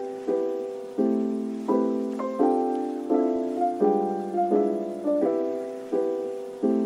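Background music: soft piano chords struck in a slow, even rhythm, each fading before the next.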